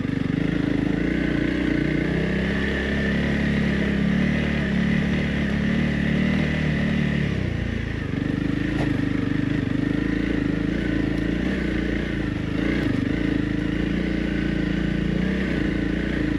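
Honda CRF 300 Rally's single-cylinder four-stroke engine running at low, steady revs as the motorcycle is ridden over rough ground. The engine note dips briefly about halfway through, then settles again.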